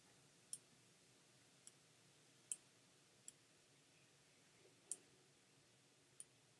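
Six sharp, irregularly spaced clicks from working a computer, over near-silent room tone.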